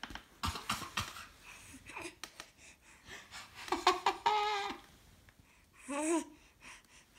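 A toddler fake coughing and making silly vocal noises. There are short breathy bursts in the first second or so, then two high, drawn-out voice sounds, one about four seconds in and a shorter one near six seconds, with a laugh-like quality.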